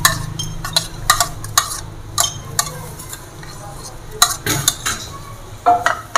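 Metal spoon clinking and scraping against a small bowl in a string of short, irregular taps, as chopped jelly is scooped out into a pot.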